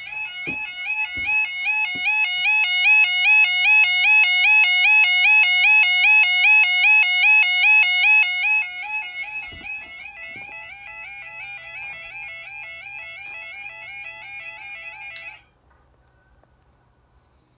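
Level crossing Yodalarm sounders giving their warbling yodel warning tone, a two-step note repeating several times a second. The tone is loudest for the first eight seconds or so, then quieter, and cuts off suddenly about fifteen seconds in. A few knocks from handling in the first two seconds and again around ten seconds.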